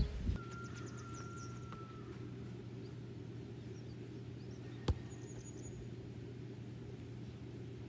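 Outdoor ambience: a steady low rumble with faint bird chirps in the first couple of seconds, and a single sharp click about five seconds in.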